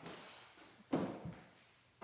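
A heavy rock set down on a concrete floor: one dull knock about a second in, followed by a softer knock as it settles.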